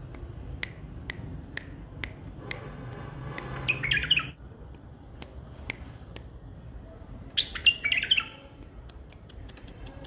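White-eared bulbul singing two short warbled phrases, one about four seconds in and one near eight seconds. Sharp single ticks come about every half second at the start, and a quick run of ticks comes near the end.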